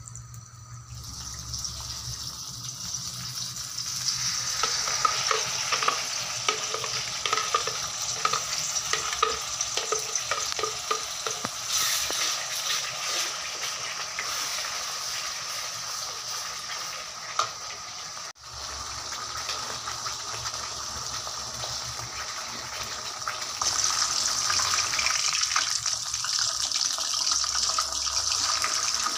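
Hot oil sizzling in a wok as chillies, tomatoes and garlic, then a blended spice paste, are fried and stirred with a spatula, with a momentary break about two-thirds of the way through. Near the end the sizzle grows louder and hissier as pieces of marinated chicken fry in the oil.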